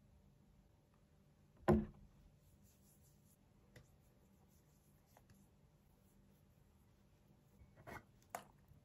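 Small handling sounds at a desk: a sharp knock about two seconds in as a plastic tube of cream is set down on the table, then near the end two small clicks as a little tin of Vaseline is twisted open.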